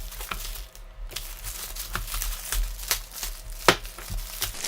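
A parcel being opened by hand: packaging crinkling and tearing, with scattered sharp clicks and one louder click about three and a half seconds in.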